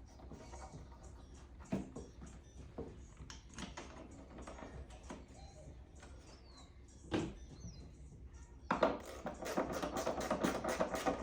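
Scattered light clicks and knocks of hands fitting taillight parts and connectors, with a sharper knock about seven seconds in. Near the end, background music with a quick beat comes in.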